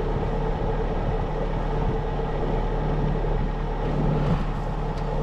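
A sailboat's inboard engine running steadily while motoring: a constant low hum with a few fixed tones.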